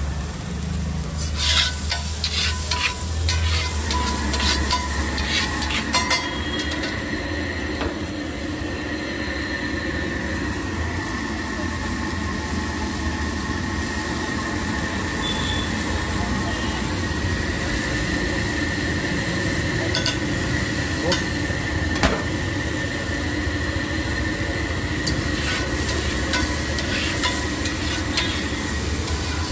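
Eggs sizzling as they fry on a hot griddle, with a metal spatula clattering and scraping against the pan, most busily in the first several seconds.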